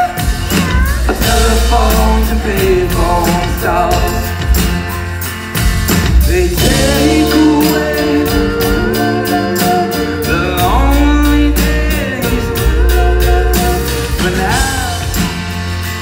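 Live band performing a song on stage, with acoustic guitar, a steady drum beat and singing, heard loud through the hall's sound system.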